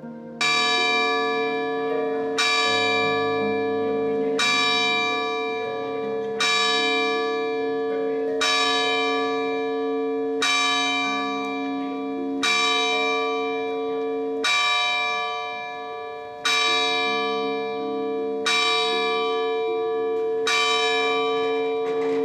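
A church bell struck eleven times at an even pace, about two seconds apart, each stroke ringing on into the next, over soft background music.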